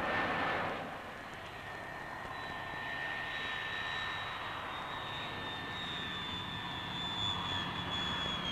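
Turbofan engines of a VFW-614 jet airliner (Rolls-Royce/Snecma M45H) running steadily: a rushing jet noise with two high whining tones, the higher one slowly sinking in pitch. The rush is louder in the first second.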